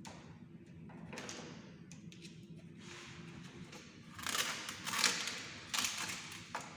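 Handling noises: irregular scraping and rustling with light knocks, busiest and loudest about four to five and a half seconds in.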